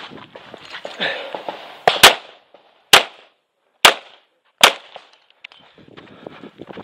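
Five shots from a 9mm Tanfoglio Stock 2 Xtreme pistol: a quick pair about two seconds in, then three more shots spaced a little under a second apart.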